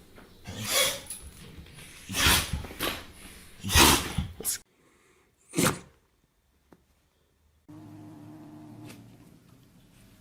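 A pet sneezing in a quick run of about five sharp sneezes, then one more after a short silent gap. A steady low hum follows near the end.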